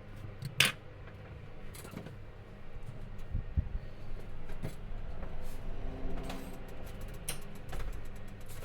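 Small, sharp clicks and taps of a watchmaker's tools against metal watch parts while a movement is taken apart, the loudest a little over half a second in, over a low steady hum.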